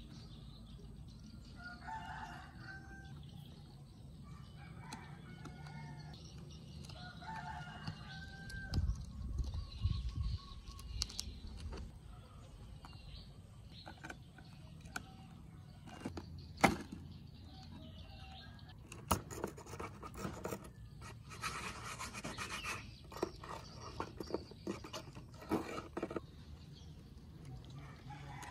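A metal pick and screwdriver scrape and tap on a dirt-caked plastic radio case. There is a sharp click about two-thirds of the way through and a stretch of dense scratching near the end. Birds call in the background during the first several seconds.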